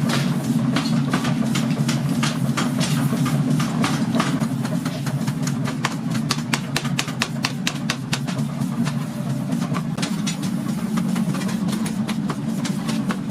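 Many quick, irregular sharp blows of metal being forged, several a second, over a steady low machine hum.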